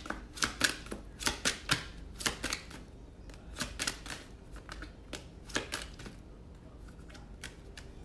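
A deck of tarot cards being shuffled by hand: quick, irregular papery snaps and flicks in clusters, thick in the first few seconds, then sparser with a quieter stretch near the end.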